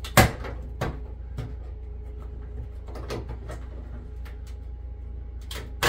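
Sheet-metal fixture cover and its small locking clip being pushed and fiddled into place by hand, making sharp clicks and taps. There is one loud click just after the start, a second click just under a second in, then lighter taps.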